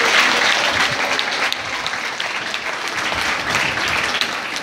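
A large crowd applauding, many hands clapping together, loudest at the start and easing off a little after a second or two.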